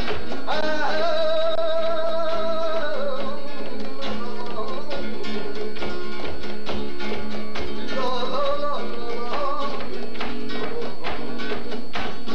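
Flamenco rumba: guitar strumming with rhythmic hand clapping (palmas), and a singer holding two long notes, one about a second in and another around eight seconds in.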